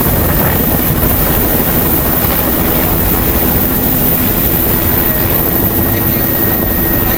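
Helicopter engine and rotor running, heard from inside the cabin: a loud, constant rumble with a steady hum through it.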